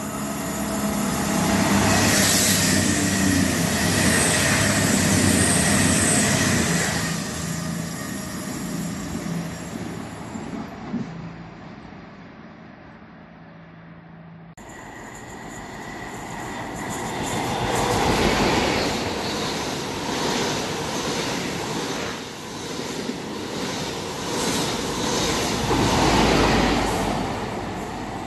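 Cross Country Class 220 Voyager diesel multiple unit running through the station at speed. Its underfloor diesel engines and wheels are loud, then fade away. After an abrupt cut, the Midland Pullman HST with Class 43 diesel power cars approaches and runs past, with loud engine rumble and wheel noise swelling twice.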